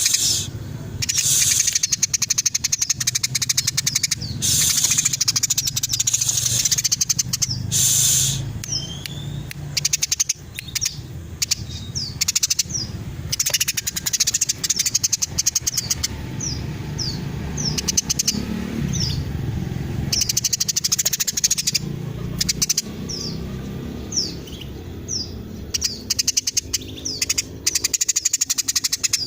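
Eurasian tree sparrow (a female, as the uploader has it) chattering non-stop: a dense, rapid stream of sharp chirps, with many short downward-sliding notes in among them.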